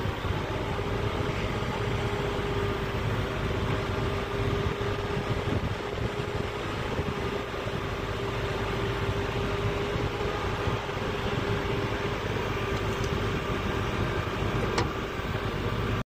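Diesel engine of a tracked excavator running steadily as it loads sand into a dump truck, a low rumble with a steady whine over it. One sharp click near the end.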